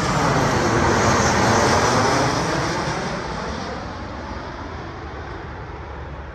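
Jet airliner passing low overhead: a wide engine roar that is loudest in the first couple of seconds, then fades steadily as the plane moves away.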